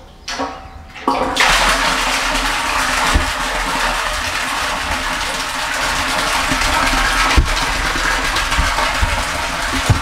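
Water from the inlet pipe starts pouring into a plastic water tank about a second in, then runs as a steady splashing stream onto the water below. The float switch has dropped and switched the submersible pump back on.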